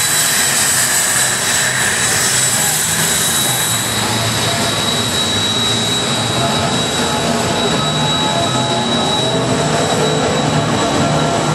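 A pack of NASCAR Truck Series V8 race trucks running at speed around the oval, a loud steady din with engine notes rising and falling toward the end.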